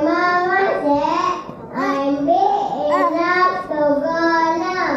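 A child singing a melody in held notes, with short breaks between phrases about one and a half seconds in and again near four seconds.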